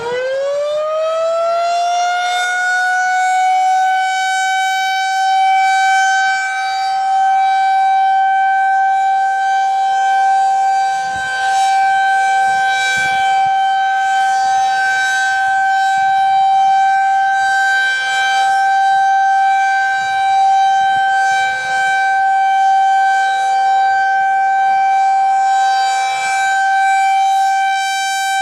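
Federal Signal 2001-SRNB outdoor warning siren finishing its wind-up, the pitch rising over the first couple of seconds, then holding a steady, loud tone, the monthly test of the siren. Its loudness swells and dips a little every few seconds as the rotating siren head turns.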